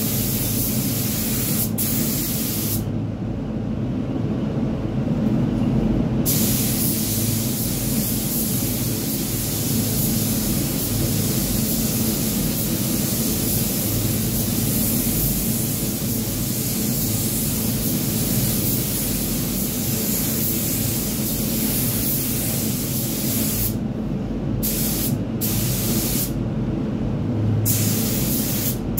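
Gravity-feed paint spray gun hissing as white paint is sprayed onto a car bumper. The hiss stops for about three seconds a few seconds in, and again in several short breaks near the end, where the trigger is let go between passes. A steady low drone runs underneath.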